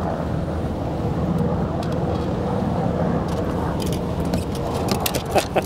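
Steady low rumble of road traffic from a nearby highway, with several sharp clicks and taps in the last second or so.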